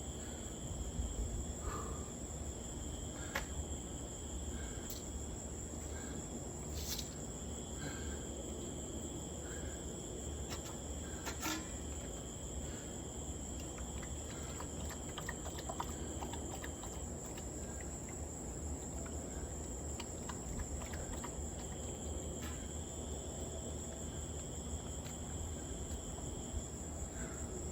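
Insects shrilling steadily in a high, even drone, with a lower trill that stops and restarts a few times and a few faint clicks.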